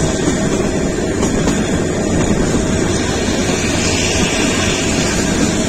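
Kalka–Shimla narrow-gauge toy train running, a steady loud rumble of the moving train.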